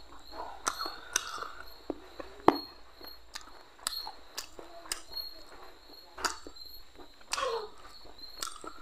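Close-up eating sounds of fried fish being chewed, with sharp lip smacks and wet chewing clicks at irregular intervals; the loudest smack comes about two and a half seconds in. Underneath, night insects chirr steadily at a high pitch.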